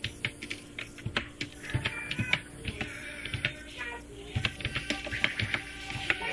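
Keyboard keys clicking in slow, uneven taps, as one-handed typing, with music playing in the background.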